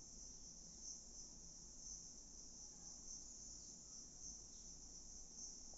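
Faint, steady, high-pitched chirring of insects that swells slightly about once or twice a second, over otherwise near silence.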